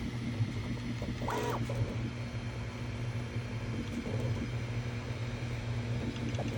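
Bambu Lab A1 3D printer running, its motors and fans giving a steady whirring hum, with a brief higher whine about a second and a half in.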